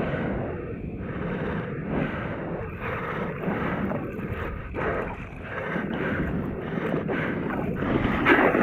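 Wheezing breathing: a rough, raspy noise that rises and falls in quick, uneven breaths, each with a short dip between them.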